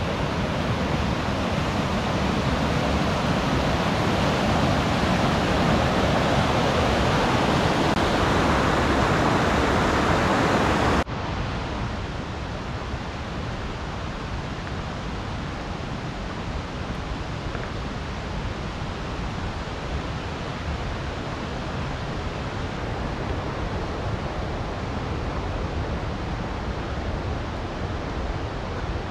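Rushing mountain creek, a loud steady white-water rush. About eleven seconds in it cuts abruptly to a quieter, steady rush with less hiss.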